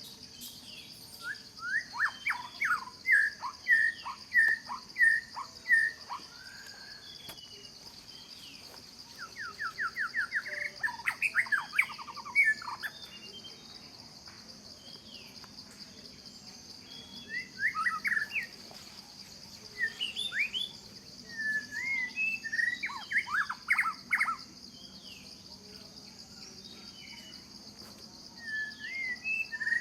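A songbird singing in several bouts of quick, repeated sweeping notes, with pauses between the bouts, over a steady high insect drone.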